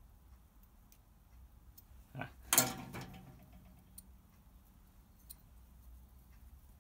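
Spark plug and small metal tools being handled on the engine: light scattered ticks and clicks, with one sharp metallic clink about two and a half seconds in that rings briefly.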